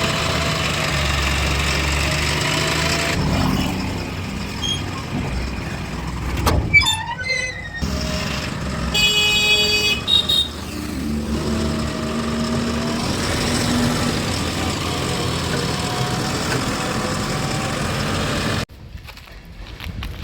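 Diesel engines of farm tractors and a backhoe loader running at a worksite. There is a short high tone about nine seconds in, and the sound drops away suddenly near the end.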